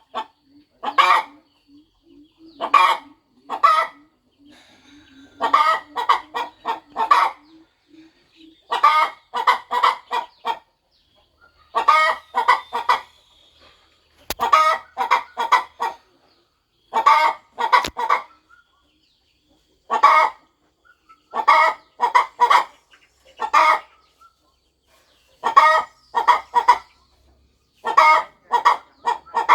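A broody mother hen clucking, in quick runs of two to five short clucks repeated every second or two.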